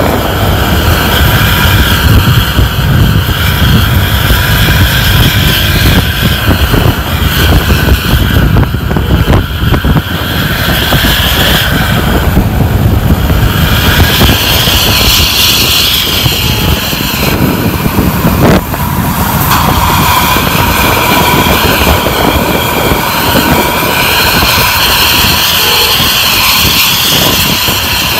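Loud, steady vehicle noise on the road: a low rumble under a high whine that dips briefly a few times.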